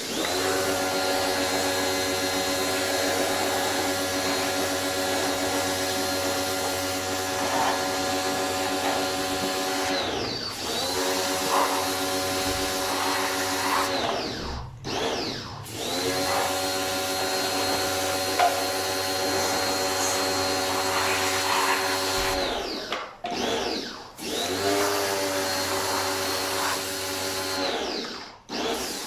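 Vacuum cleaner motor running with a steady whine. It is switched off and back on four times, each time winding down briefly and spinning back up to speed.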